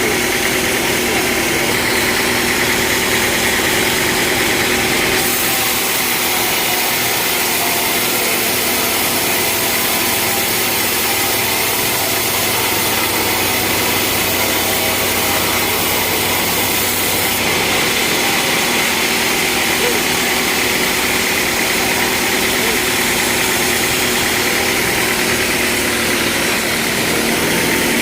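Sawmill engine running steadily. From about five seconds in until about seventeen seconds the sound turns hissier and the low rumble drops away.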